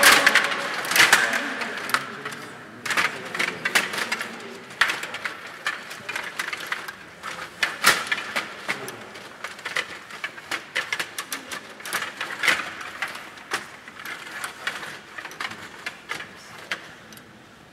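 STIGA rod hockey game in play: irregular sharp clacks and rattles of the puck, the plastic player figures and the control rods knocking against the board.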